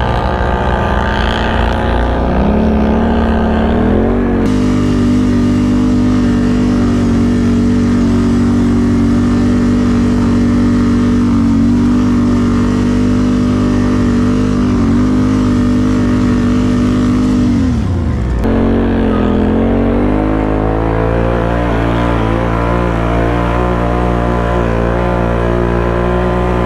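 Can-Am ATV's V-twin engine running under steady throttle while riding. Its pitch steps up about two and four seconds in, holds steady for a long stretch, dips briefly about eighteen seconds in, then climbs again.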